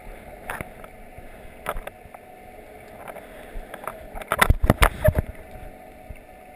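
Muffled underwater sound heard through a camera's waterproof housing: water clicking and knocking against it over a steady hum, with a run of loud knocks and splashes about four and a half seconds in.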